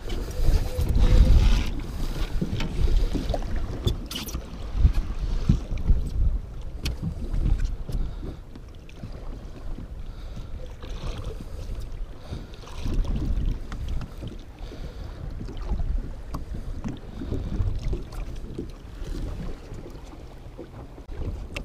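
Wind buffeting the microphone in gusts, with choppy waves lapping against the side of a small fishing boat and a few short knocks.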